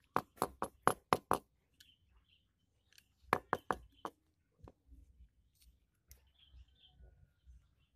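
Small metal parts clinking and tapping against one another as they are handled: a quick run of about five sharp clinks, then a second run of four or five a couple of seconds later.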